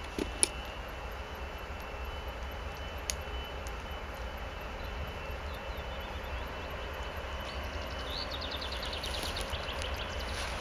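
Distant 2TE116 twin-section diesel locomotive approaching with a freight train: a steady engine drone from its 16-cylinder diesels, growing slowly louder. A sharp click comes about half a second in, and a rapid high trill near the end.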